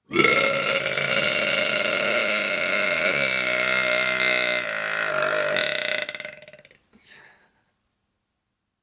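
A woman's single long belch, lasting about six and a half seconds at a fairly steady pitch, going ragged and sputtering out near the end.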